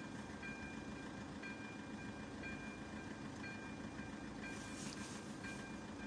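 AŽD 97 level-crossing warning bell ringing, a short electronic ding about once a second, signalling an approaching train. A steady low hum runs beneath it, and a brief hiss comes about four and a half seconds in.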